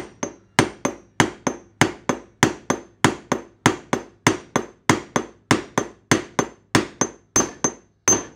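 A hammer striking the handle of a bearing race driver in steady blows, about three a second, driving a new outer bearing race into a Nissan Hardbody (D21) wheel hub. Near the end the hits turn nice and solid with a ringing note, the sign that the race has bottomed out against its shelf in the hub.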